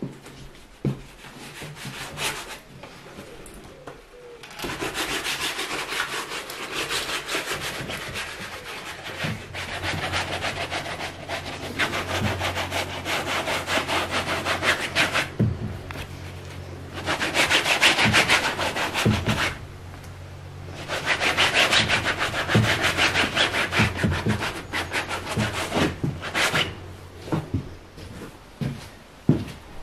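A cloth rag scrubbed back and forth over a painted canvas, working the paint into the surface in long spells of fast strokes broken by a couple of short pauses, with occasional dull knocks.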